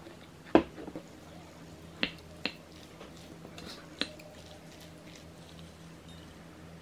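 A wooden spoon knocking against a baking dish while scooping food. One sharp clack comes about half a second in, then three lighter clicks at about two, two and a half and four seconds.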